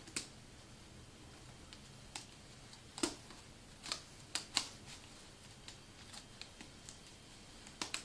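Hands twisting a rubber band around folded cotton fabric between two disposable-diaper wheels: faint handling noise with scattered sharp little clicks and rustles, the loudest about three and four and a half seconds in.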